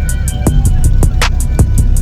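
Hip hop background music with a steady drum-machine beat: kick drum, snare and hi-hats over a bass line.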